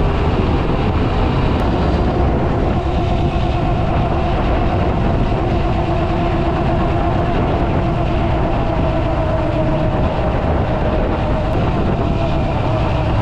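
Motorcycle engine running at steady revs while riding, with a steady rush of wind on the microphone.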